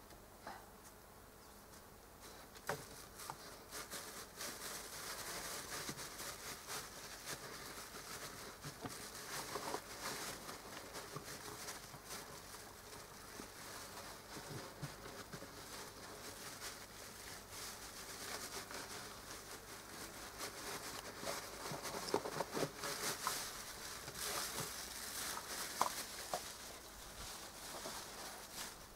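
Faint rustling and scattered light clicks of a dog nosing and rummaging in a food bag.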